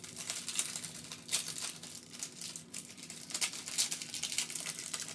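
Plastic packaging crinkling and rustling as it is handled, in many short irregular crackles.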